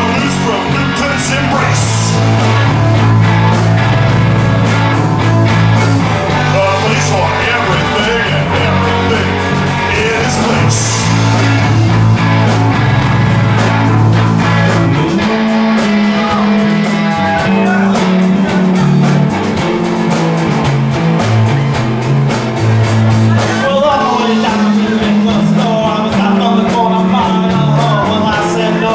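A live rock band playing a song, with a steady drum beat over a bass line that moves to a higher pattern about halfway through.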